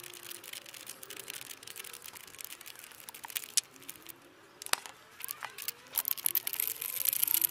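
Scattered clicks and small knocks of handling, with one sharper knock about midway, growing denser and louder near the end over faint background noise.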